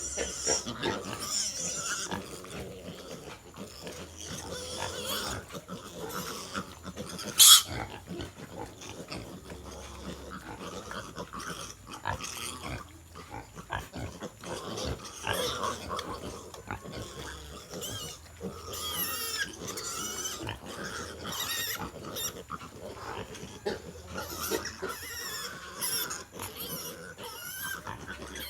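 Native piglets squealing in repeated high, wavering cries as they push for teats while the sow nurses; piglets scream like this when they reach a teat that is not their own. A single sharp click about a quarter of the way in is the loudest sound.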